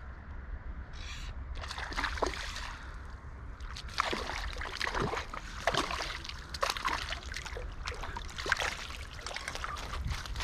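Hooked trout splashing and thrashing at the water's surface as it is played and drawn in to the net, in a quick irregular run of splashes, over the steady rush of the river.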